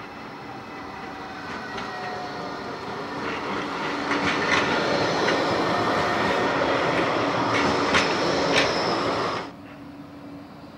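Bombardier Flexity 2 tram running along street track, its rumble growing louder as it comes close and passes, with a few sharp clicks from the wheels as it goes by. The sound drops off abruptly about nine and a half seconds in, leaving a quieter street background.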